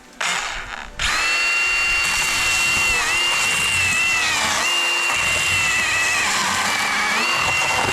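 Milwaukee M18 FUEL 18V handheld battery chainsaw running at speed with a steady high motor whine, starting about a second in after a brief rush of noise. Its pitch dips briefly about three times, as the motor takes load.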